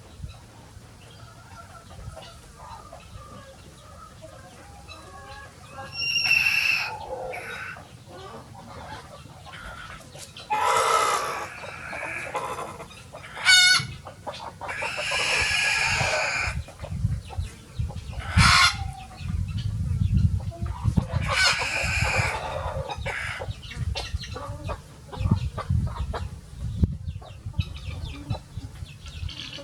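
Free-ranging chickens calling: a rooster crowing and hens clucking, in separate calls spread through, the longest about halfway through. A low rumble runs underneath in the second half.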